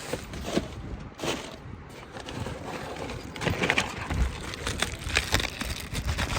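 Handling noises: scattered knocks, clicks and rustles, getting busier in the second half.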